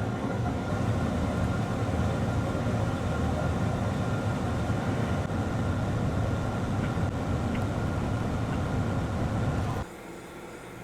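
Hot air rework station blowing steadily while the CPU is soldered onto an iPhone logic board, then cutting off abruptly near the end, leaving a quieter steady hiss.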